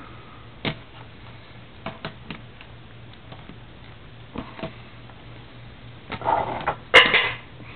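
Trading cards being handled and shuffled through: scattered light taps and clicks, with a louder rustle about six seconds in.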